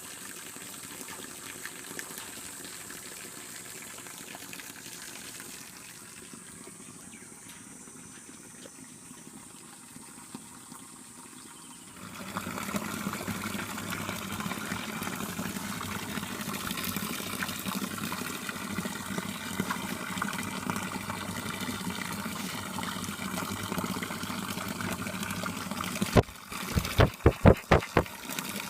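Water from a homemade waterfall pouring and splashing steadily into a pool, growing louder about twelve seconds in. Near the end comes a quick burst of about seven loud hits.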